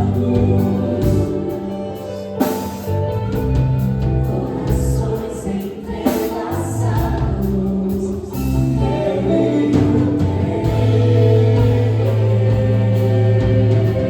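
Gospel worship song: singers holding long sung notes over sustained keyboard chords and bass.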